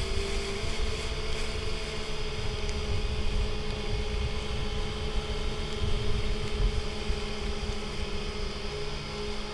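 Boat engine running at a steady pitch, with a low rumbling noise underneath.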